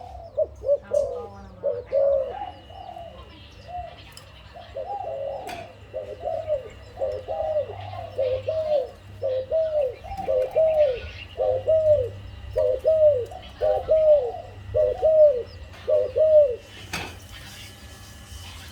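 A Malay dove (zebra dove) cooing: a long series of short, quick notes, each rising and falling, about two a second, ending about 16 seconds in.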